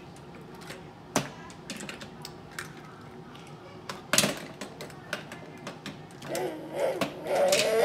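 Small die-cast toy cars clicking and clattering as they are picked up, set down and knocked against each other on a plastic play table, with a sharper knock about four seconds in. In the last two seconds a child's voice makes a drawn-out sound that rises and falls in pitch.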